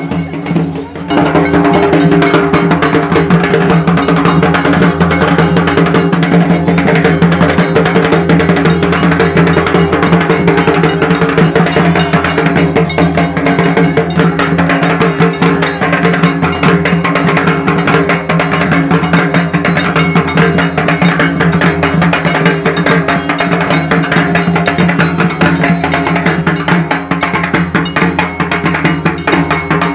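Dhak drums beaten in a fast, steady rhythm, with rapid metallic strikes running alongside; the playing grows louder about a second in.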